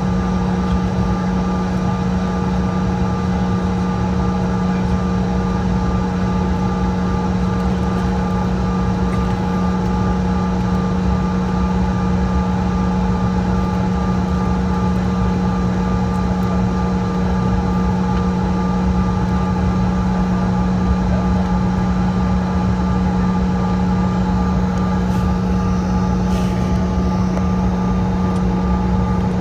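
Airliner cabin noise as the jet rolls along the ground: the engines and cabin air give a loud, steady drone with a constant low hum and fainter steady whines above it.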